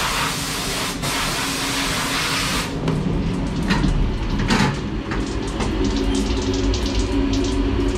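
Compressed-air blow gun hissing in two long blasts, with a short break about a second in; it stops about a third of the way through. After that the CNC machine and its mist filter give a steady low hum, with scattered small clicks.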